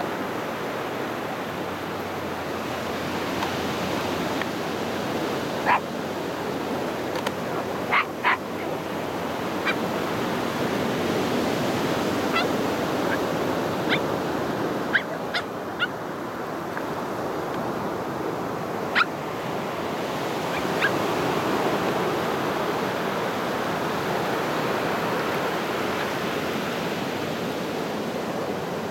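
Ocean surf: small waves breaking and washing up a sandy beach in a steady rush that slowly swells and eases. About a dozen short, sharp, high-pitched animal calls sound through the first two-thirds.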